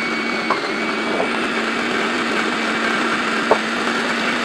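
Fellow Opus conical burr coffee grinder running steadily, grinding beans for an espresso shot. A light click comes about three and a half seconds in.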